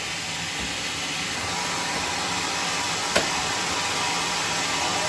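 Band sawmill running: a steady machine noise that grows slightly louder, with a single sharp click about three seconds in.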